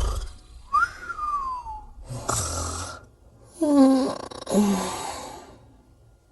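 Snoring sound effect: a whistled breath out that rises and then slides down, a rasping snore, then two short low snores, fading out near the end.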